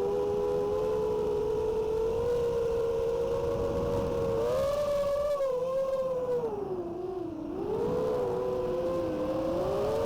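iFlight Nazgul ECO FPV quadcopter's motors and propellers whining steadily, the pitch falling and the sound easing about seven seconds in as the throttle drops, then climbing back.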